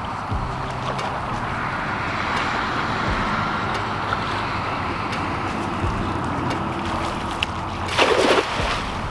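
Wind noise on the microphone over gently lapping shallow water, then about eight seconds in a brief loud splash as a thrown cast net lands on the water.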